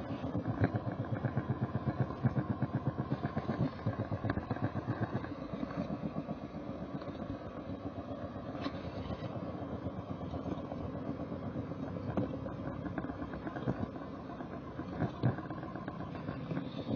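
Model train running along its track, heard from a camera carried on the train: a steady rumble with fast, rapid clicking from the wheels and drive, heaviest in the first several seconds.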